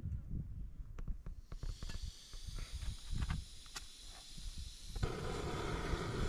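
Safety matches handled and struck on their box with a few sharp scratches and clicks. About five seconds in, a steady gas hiss starts abruptly from the canister camp stove. Low wind rumble on the microphone runs underneath.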